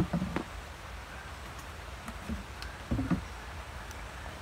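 Clothes and plastic laundry items being handled: a sharp click at the start, then short knocks and rustles just after it and again about three seconds in, over a steady low rumble.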